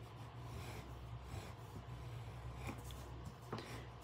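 Bone folder rubbing along the die-cut stitched edge of a cardstock tag, smoothing down the rough stitch lines: a faint scraping rub with a few soft ticks later on.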